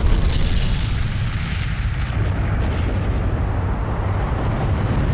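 Nuclear explosion sound effect: the long rumble after the blast, deep and continuous, with a hiss on top that eases a little after the first second.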